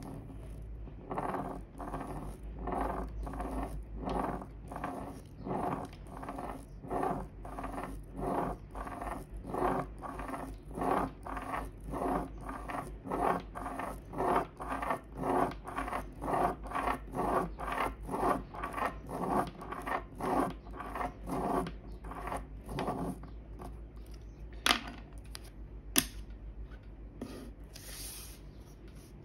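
Pen scratching on paper as a plastic Spirograph gear wheel is run around inside a toothed plastic ring, in steady, rhythmic strokes about one and a half a second. The strokes stop, and two sharp clicks follow.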